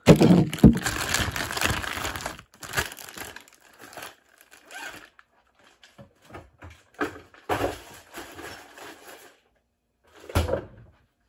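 Close rustling and knocking as a phone is handled and set down, then faint crinkling and rustling with scattered knocks, and a short thump near the end.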